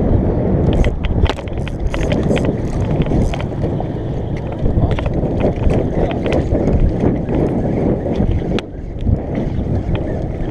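Wind rumbling on a GoPro's microphone on an open boat, over water slapping at the hull. A run of sharp clicks and knocks comes about one to four seconds in, with a few more later, as the camera rubs and bumps against the angler's forearm.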